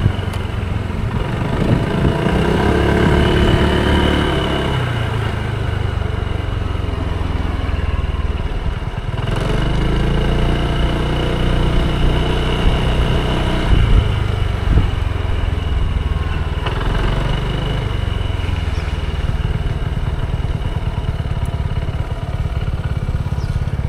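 Honda automatic scooter riding along a road, its engine running steadily with the pitch rising and falling three times as the rider opens and closes the throttle.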